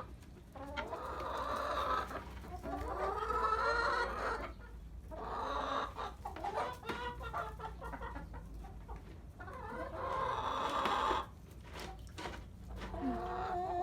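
Domestic hens clucking and squawking, a run of short, repeated calls coming in bursts.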